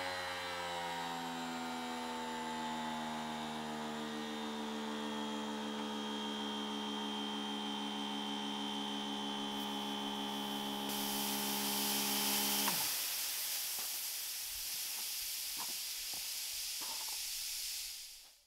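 Pressure washer pump running with a steady multi-toned whine, its pitch sagging slightly at first as the welded sheet-steel shell fills with water and swells into a sphere. About ten seconds in, a loud hiss of water spraying out of the pressurised shell joins it. The pump cuts out a couple of seconds later while the hiss carries on, fading away near the end.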